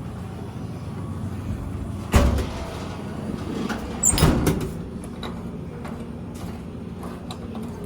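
A door or panel shutting: a heavy thump about two seconds in, then a louder rattling bang about four seconds in, followed by a few light clicks over a steady low hum.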